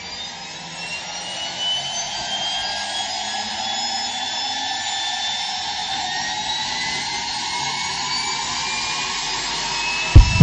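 Aircraft turbine engine whining as it spools up: its pitch rises and it grows louder over the first couple of seconds, then it holds a steady high whine over a rush of noise. A heavy deep thump comes right at the end.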